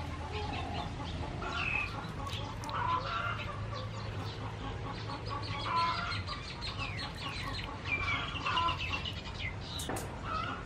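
Chickens clucking with short, scattered calls throughout.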